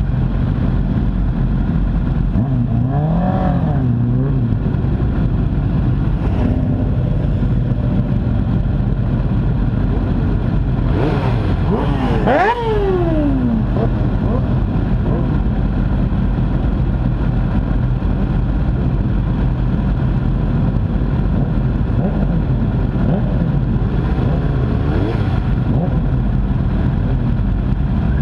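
Race motorcycle engines idling on the grid, picked up close by an onboard camera, with engines blipped now and then in short rises and falls of pitch. A little under halfway through, one engine is revved hard and its pitch falls away over a couple of seconds.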